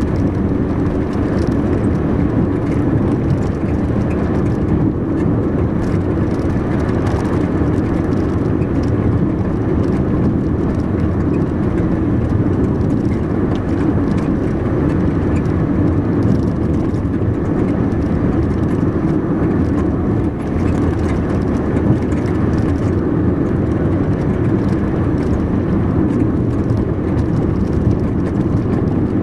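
Car driving at a steady speed on an asphalt country road: an even engine hum and tyre rumble.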